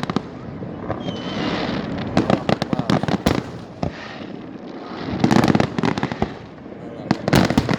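Fireworks display going off: rapid crackling bangs in clusters, with short gaps between them and the densest, loudest salvos a little past halfway and near the end.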